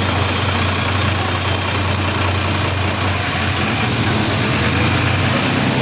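Diesel engine of an MCW Metrobus double-decker idling at the kerb with a steady low hum, its note shifting slightly near the end.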